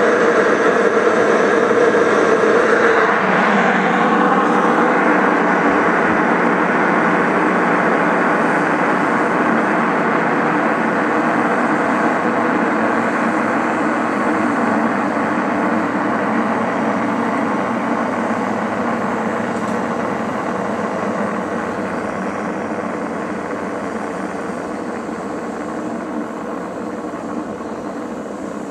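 Pressurized steam rushing from a small stainless boiler into the mash, a steady loud hiss that raises the mash temperature. A humming tone rides on it for the first few seconds, then the rush evens out and slowly fades.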